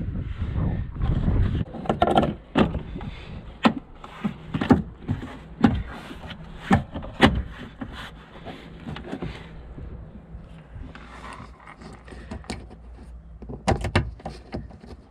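Plastic trim panel being handled and pushed back into line: a low rubbing rumble at first, then a string of irregular sharp knocks and clicks that thin out midway and pick up again near the end.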